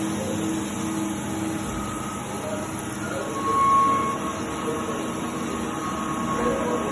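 Five-axis CNC vertical machining center at work: a steady mechanical noise with whining tones, and a brief higher whine about three and a half seconds in.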